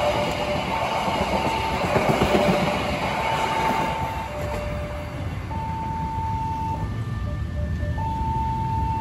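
Passenger train coaches rolling past with wheels clattering on the rails; the noise drops off about four and a half seconds in as the last coach goes by and the train moves away. Over it, a level-crossing warning plays a slow electronic chime of alternating high and low tones throughout.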